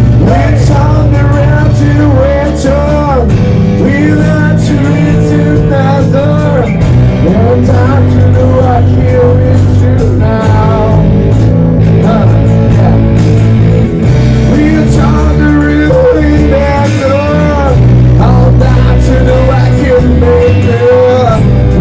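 Live band music with a singer: a full, loud band with steady bass under a wavering sung melody.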